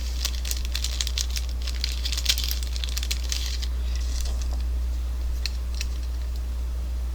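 Hands handling and clicking the small plastic parts of a wireless dog fence's receiver collar. A quick run of clicks and crinkles is followed by a few single ticks near the end, over a steady low hum.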